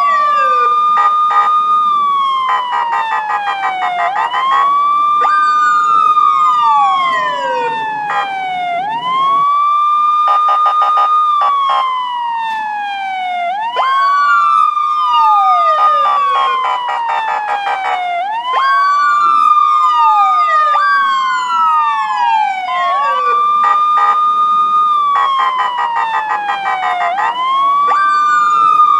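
Police siren wailing, its pitch rising, holding high, then falling in slow cycles about every four and a half seconds. A second siren tone overlaps it with quicker falling sweeps.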